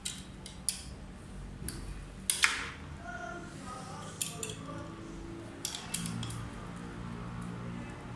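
Small metallic clicks and clinks of a scooter headlight and its mounting hardware being handled and fastened onto the front bracket, scattered irregularly, with a sharper knock about two and a half seconds in.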